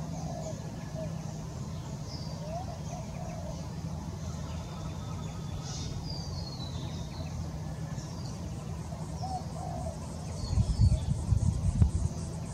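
Australian wood duck ducklings peeping: scattered short, high, falling chirps, with a few softer lower calls mixed in. A burst of low rumbling comes near the end.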